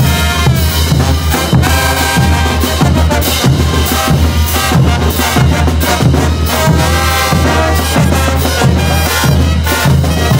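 Brass band playing live on the march: sousaphones, trumpets and trombones over bass drums, snare drum and hand cymbals keeping a steady beat.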